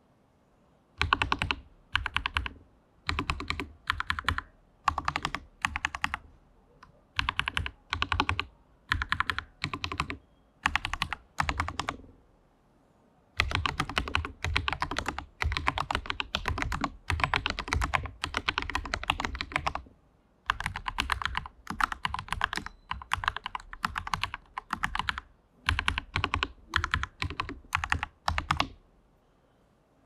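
Typing on a custom mechanical keyboard fitted with handmade ceramic keycaps alongside PBT keycaps: short runs of clacking keystrokes, each about half a second long with brief pauses between, then about six seconds of continuous typing near the middle, then short runs again.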